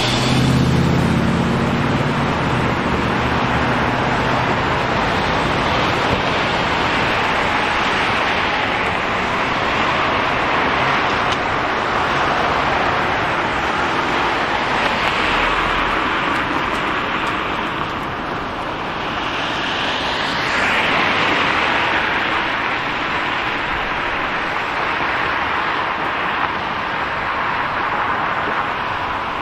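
City street traffic: a steady wash of cars passing, with a low engine hum in the first couple of seconds and a vehicle swelling past about two-thirds of the way in.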